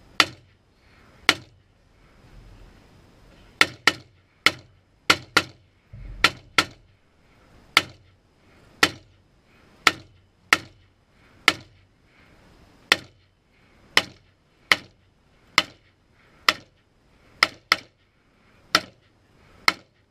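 Shots from an AR-style semi-automatic rifle fired one at a time. There are a little over twenty in all, at roughly one a second, some coming in quick pairs.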